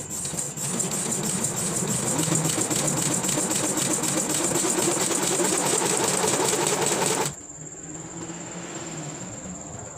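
Small motorized earthquake shake table shaking a model bridge of thin strips: a fast, even mechanical rattle that cuts off abruptly about seven seconds in. A quieter hum and a steady high-pitched whine run underneath.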